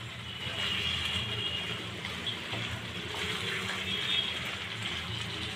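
Chicken gravy simmering with a steady sizzle in a pan on the stove while it is stirred, just after water has been added so the chicken can boil. A low steady hum lies underneath.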